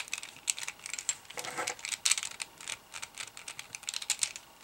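Quick, irregular clicking and rattling of the plastic pieces of an MF8 Super Square-1 puzzle as it is worked in the hands while its centre screw is unscrewed. The pieces are loose because the screw is nearly out.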